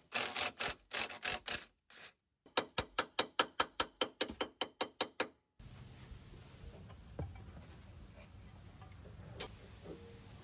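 Ratchet wrench clicking in quick strokes, a short run and then a longer, faster one at about five clicks a second, as a brake fitting is worked on the caliper. After that only a faint low hum with a few light taps.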